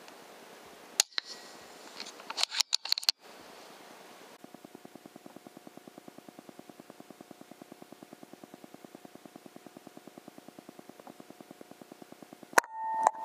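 A sharp click about a second in and a quick run of clicks around three seconds. Then a steady rapid pulsing, about ten beats a second, which gives way to a loud crack near the end.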